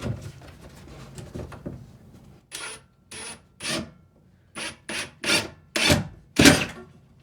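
A run of about nine short rasping scrapes, roughly two a second, growing louder toward the end, after a few faint clicks.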